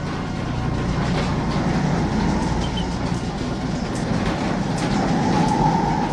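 A locomotive running at speed, with a steady rumble and the rattle and clatter of wheels on rails. A higher ringing tone swells near the end.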